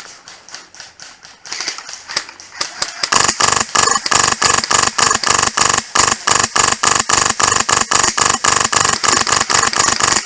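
HPA airsoft M4 with a Polarstar Fusion Engine firing a long string of rapid shots, about five a second, each a sharp crack with a slight metallic ring. It starts about three seconds in, after a stretch of fainter, quicker shooting.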